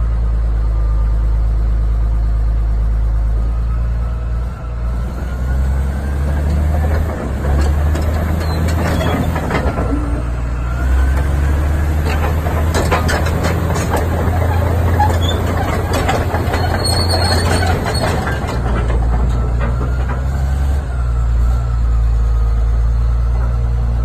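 Heavy diesel engine of a Caterpillar D7R crawler bulldozer running at a steady low idle. Through the middle stretch the drone shifts and is broken by irregular metallic clanks and knocks, and it settles back to a steady idle near the end.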